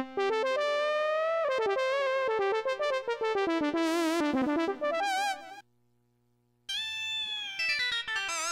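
Yamaha S03 synthesizer played through one of its factory preset sounds. A descending melodic line, wavering with vibrato toward its end, breaks off about five and a half seconds in. After about a second's pause, a second phrase of notes begins.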